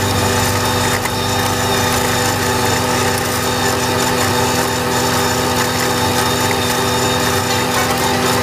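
Valtra A93 tractor engine running steadily under load, driving an Agrimaster KP2600 flail mower through the PTO shaft as its flails cut grass. A constant engine hum with a dense whir from the mower rotor.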